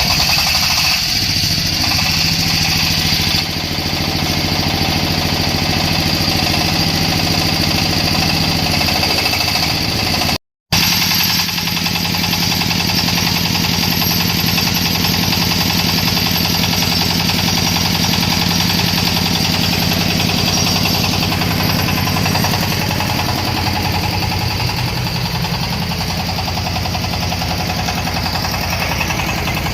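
Corn sheller for unhusked cobs driven by its 26 HP engine, running steadily; the sound cuts out for a split second about ten seconds in.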